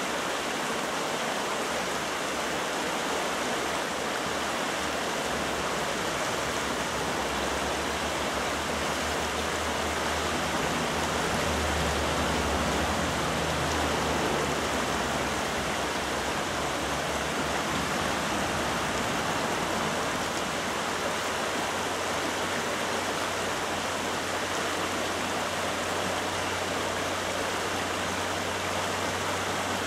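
Shallow river rapids rushing and splashing over boulders in a steady, unbroken rush of water.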